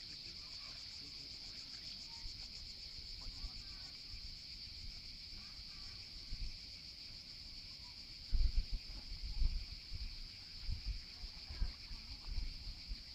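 Steady high-pitched drone of cicadas, a continuous shrill buzz. From about eight seconds in, wind buffets the microphone in low rumbles.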